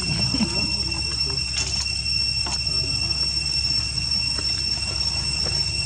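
Steady, high-pitched insect drone, one unbroken tone, over a low rumble, with a few faint clicks.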